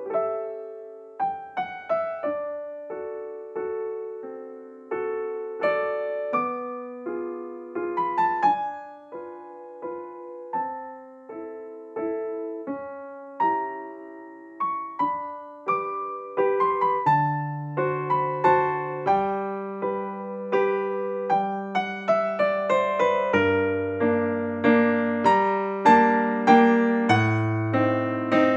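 Background piano music: a gentle tune of struck notes and chords that fade away, with lower bass notes joining a little past halfway.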